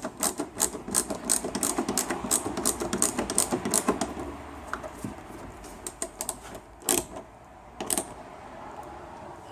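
Ratchet clicking rapidly, several clicks a second, as Torx screws are driven into the plastic headlight mounting, then easing off to two single clicks near the end.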